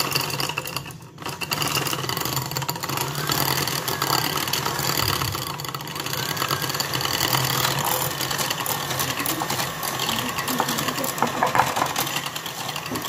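Electric hand mixer running, its beaters whisking egg and sugar in a ceramic plate: a steady motor whir with the beaters knocking against the plate. The sound dips briefly about a second in, then runs on.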